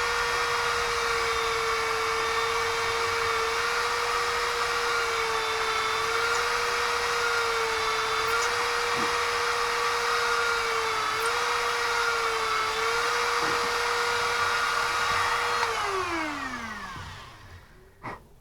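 Small high-speed electric drill running steadily while drilling tiny holes, its whine dipping briefly in pitch a few times as the bit bites. About sixteen seconds in it is switched off and winds down in falling pitch, followed by a couple of small clicks.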